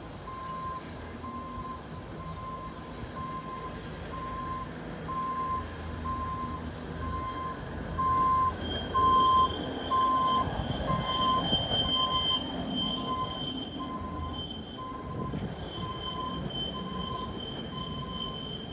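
Hi-rail pickup truck passing on the track with its backup alarm beeping steadily, about one and a half beeps a second, loudest about ten seconds in as it goes by. From about eight seconds in, high squealing and screeching from its rail wheels on the steel rails joins the beeping.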